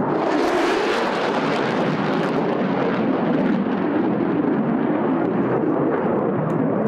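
Jet engine roar from a four-ship formation of F-16 fighter jets flying past, a loud, steady rush with a sharper hiss over the first couple of seconds.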